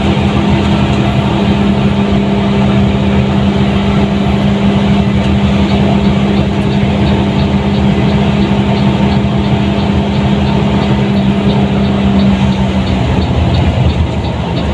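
Diesel engine of a Mercedes-Benz OH 1623 front-engine bus running steadily while under way, with a strong steady drone that drops away about twelve seconds in. A light, regular ticking joins about halfway through.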